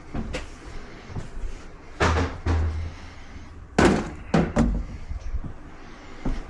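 Thuds and knocks from handling dryer parts during disassembly: two dull thuds about two seconds in, then three sharper knocks a little after the middle.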